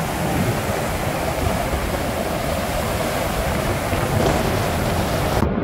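Flash-flood surge of muddy water and debris rushing down a desert wash: a loud, steady rushing roar with a deep rumble underneath. The high hiss cuts off abruptly just before the end.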